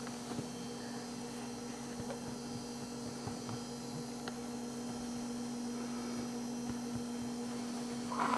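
Steady low electrical hum, like mains hum, with a few faint ticks.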